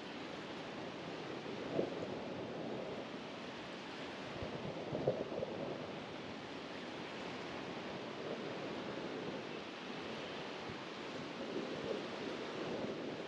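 Steady wash of sea surf on a beach, with a couple of faint knocks about two and five seconds in.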